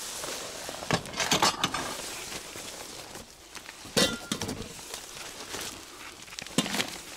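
Hard objects being handled and knocked together: a few sharp clinks and knocks, one about four seconds in ringing briefly.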